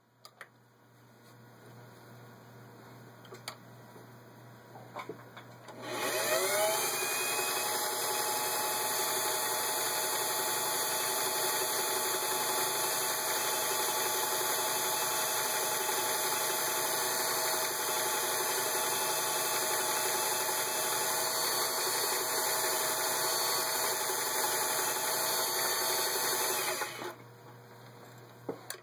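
Singer 503A Rocketeer sewing machine's motor starting about six seconds in, winding up to speed, then running steadily as it sews a ball-stitch pattern from a fashion cam, stopping near the end.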